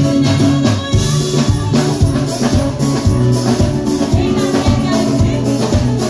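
Live band music through a PA: a drum kit keeping a steady beat under acoustic guitar, with a woman singing into a microphone.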